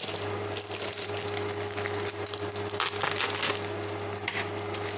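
Sautéed mushrooms and red bell pepper sizzling and crackling in their sauce in a frying pan, with a steady low hum underneath. The crackle is thickest about three seconds in.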